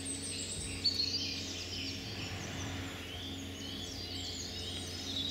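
Wild birds singing: many short, high chirps and trills overlapping all the way through, over a faint steady low hum.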